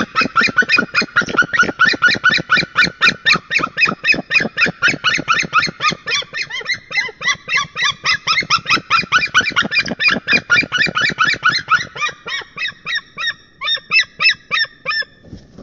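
White-tailed eagles calling: a long, rapid series of loud yelping notes, about five a second, growing sparser and fainter over the last few seconds.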